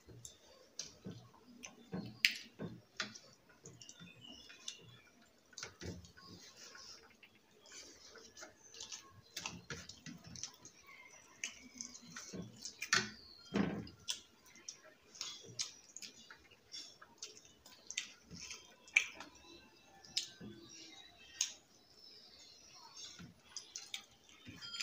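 Close-up eating sounds of two people eating rice and fish curry with their hands: irregular small clicks and smacks of chewing and lips, with fingers mixing rice against ceramic plates.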